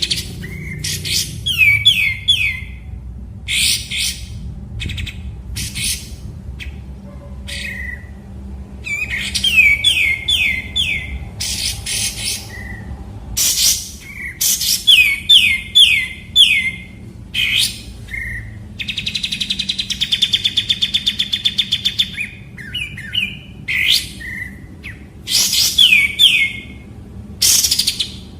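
Kapas tembak bulbul singing: sharp repeated chips and quick runs of three or four falling whistled notes, with a long rapid trill about twenty seconds in.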